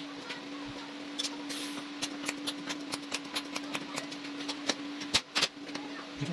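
A quick series of sharp metallic clicks and taps, several a second, from bench work on a stainless-steel motorcycle center stand, over a steady hum.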